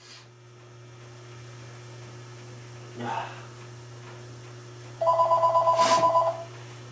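Cordless phone ringing: one electronic trill of two warbling tones, about a second and a half long, starting about five seconds in, over a steady low hum.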